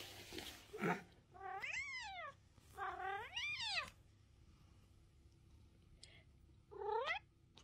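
A tabby cat meowing several times, drawn-out meows that rise and fall in pitch, with the last one shorter near the end.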